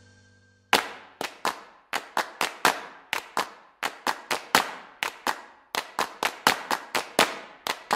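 Intro music made of sharp percussive hits, about three a second, each dying away quickly. It starts about a second in after a brief silence.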